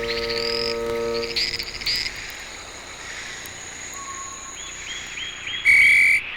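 Rainforest frog and insect chorus: repeated short chirping calls over a faint steady high insect whine. A steady low droning tone fades out about a second in, and a louder call comes near the end.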